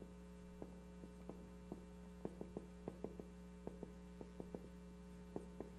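Dry-erase marker writing on a whiteboard: faint, irregular taps and clicks, a few a second, over a steady electrical hum.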